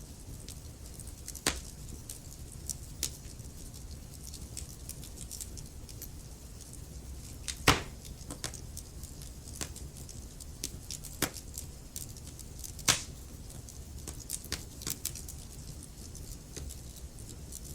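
Logs burning in a fireplace: crackling with frequent small ticks and a few sharper pops, the loudest about seven and a half seconds in and another near thirteen seconds, over a low steady rumble of the flames.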